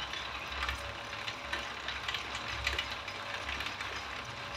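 Electric-motor-driven bamboo strip-slicing machine running, its belt, pulley and rollers turning with a low uneven throb, a faint steady whine and scattered clicks as bamboo strips are fed through and sliced thin.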